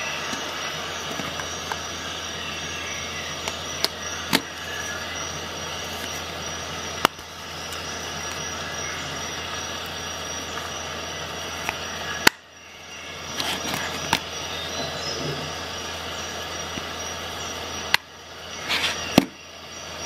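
Scattered sharp clicks and knocks of plastic screwdriver-bit cases being handled and set down, over a steady background hiss.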